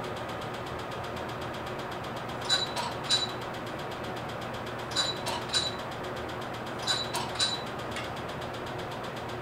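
Q-switched Nd:YAG laser firing pulses at the skin: about eight sharp clicks, each with a brief high tone, in three groups of two or three. The laser unit keeps up a steady machine hum underneath.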